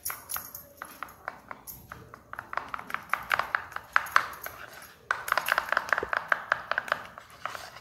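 Steel spoon stirring batter in a plastic bowl, mixing yellow food colour into maida batter. It knocks against the bowl in a quick run of light, ringing clicks, which grows faster and denser over the last few seconds.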